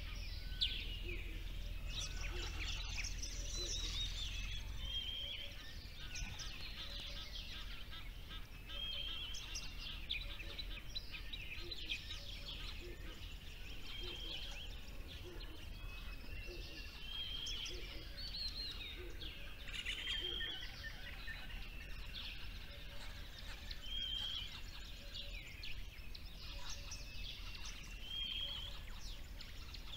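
A chorus of small songbirds singing and chirping, with many overlapping short calls and one short phrase that repeats every couple of seconds.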